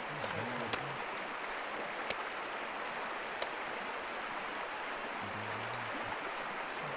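Steady rush of a stream running over stones, with a few sharp clicks and brief low murmurs of voices.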